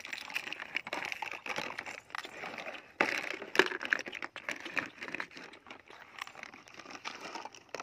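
Close rustling, crinkling and clicking as a plastic basin of water and rubber toys is handled, with sharp knocks about three seconds in and again half a second later.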